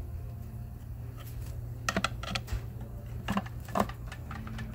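A pry bar clicking and tapping against the aluminium transmission case of a Ford 10R80 as the front support is pried loose to break the seal's bond: a handful of sharp metal clicks, over a low steady hum.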